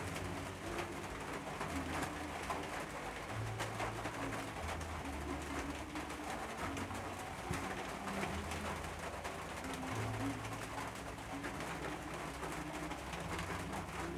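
Pigeons cooing over and over, low coos about a second long each.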